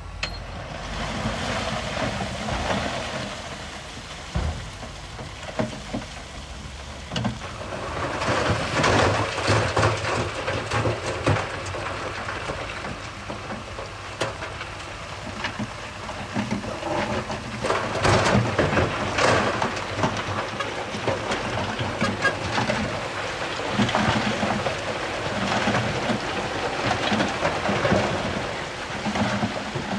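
Heavy earthmoving machinery working loose stone: a diesel engine running under a dense, irregular crunching and rattling of rock, louder in surges.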